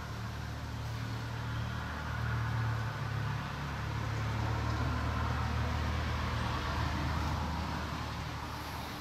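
Mercedes-Benz M114 inline-six engine idling with a steady low hum.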